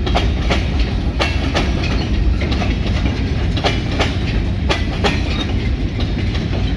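Freight train cars rolling past at close range: a steady low rumble with irregular sharp clacks as the wheels cross the rail joints.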